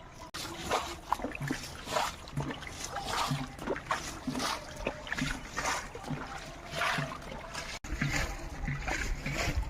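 Water splashing over and over in shallow river water, about two splashes a second.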